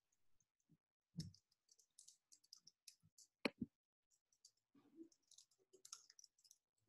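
Near silence broken by faint, irregular clicking at a computer, with two sharper clicks about a second in and about halfway through.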